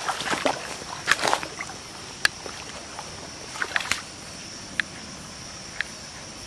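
Hands splashing and sloshing in shallow stream water: a series of short splashes and drips, busiest in the first four seconds, then two faint ticks, over a steady high hiss.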